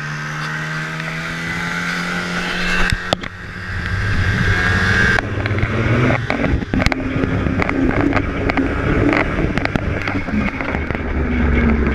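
Snowmobile engine running steadily, then pulling harder as the sled rides across the snow, with many sharp knocks and wind buffeting on the sled-mounted camera. There is a knock and a brief dip about three seconds in, and the engine note rises near the end.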